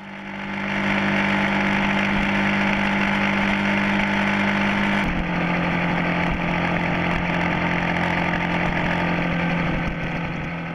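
Cruiser motorcycle engine running at a steady cruising speed, under wind and road noise. About halfway through the engine note drops suddenly to a slightly lower, steady pitch.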